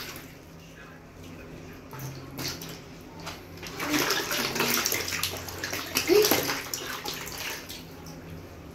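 Water sloshing and splashing in a plastic basin as hands push floating water balloons about, in uneven swells, loudest about six seconds in.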